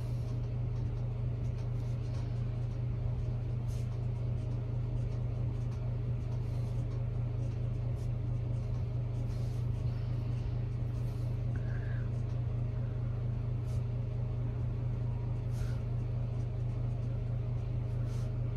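A steady low hum, with a few faint light ticks here and there.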